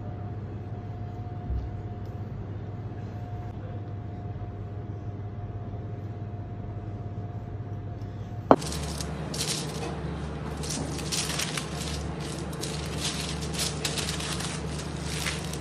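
Steady kitchen hum with a faint steady tone. About eight seconds in there is a sharp click, then baking parchment paper crinkles and rustles in irregular crackles as it is folded over a salmon fillet.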